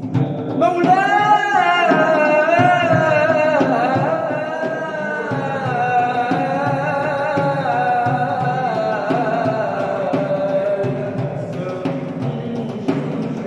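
A male munshid singing an Egyptian religious ibtihal solo in Arabic: one long melismatic line beginning about half a second in, held and ornamented with wavering turns. Percussion beats sound underneath.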